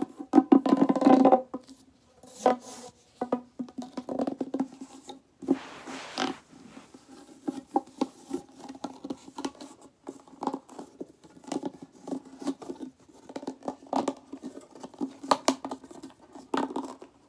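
Plastic pop tubes being stretched and squashed: a dense, irregular run of crackling pops and clicks as the ridges snap, loudest in the first second or so.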